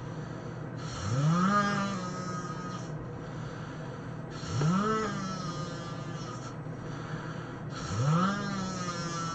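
A person snoring loudly, three snores about three and a half seconds apart, each a rising, pitched drone lasting about a second, over a steady background hum.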